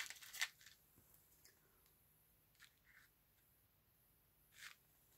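Near silence, broken by a few faint clicks and soft rustles of a plastic tub and foil packet being handled. There are two clicks at the very start, two faint ticks midway and a short rustle near the end.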